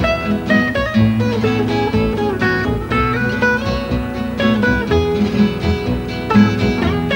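Background music: strummed and plucked acoustic guitar playing a lively, steady rhythm.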